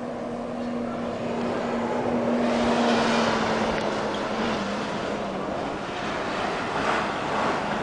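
Wind rushing across the camera microphone, swelling in a gust about two and a half seconds in and again near the end, over a faint steady hum that fades out about halfway.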